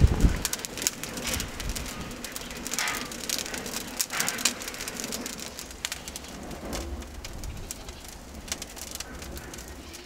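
Wood fire crackling inside a clay tandoor, with sharp pops scattered irregularly over a steady hiss and a low rumble at the very start.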